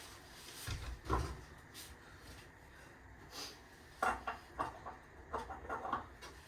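Scattered dull knocks and clunks of work around the car: a couple of knocks about a second in, then a quick run of short clunks and scrapes from about four seconds in.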